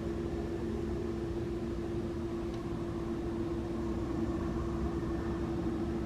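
Steady mechanical hum holding one constant low tone.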